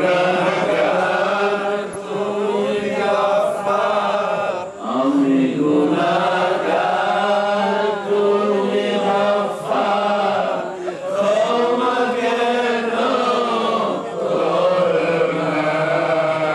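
A man's voice chanting a devotional Islamic melody through a microphone, in long drawn-out phrases of a few seconds each, with brief pauses for breath between them.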